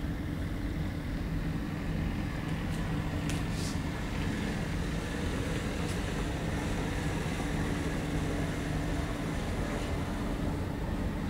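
Steady low engine drone with a few faint clicks about three and a half seconds in.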